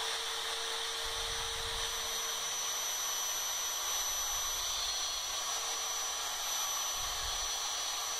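DeWalt DW660 cutout-tool spindle on a Shapeoko 2 CNC router, running at high speed with a steady high whine while its straight-flute carbide end mill cuts into thin wood.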